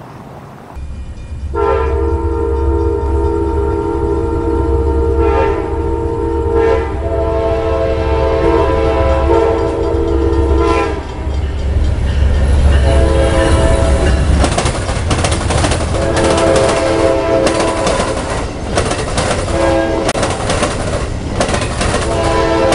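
An Amtrak passenger train's diesel locomotive sounds its multi-note horn in long blasts over a deep engine rumble. Its wheels then clatter rapidly across the rail diamond as the cars pass, and the horn sounds again in several more blasts.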